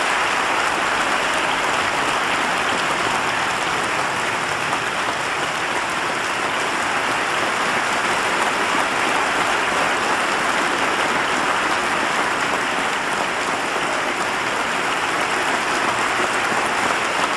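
Large audience applauding steadily in a standing ovation: dense, even clapping with no break.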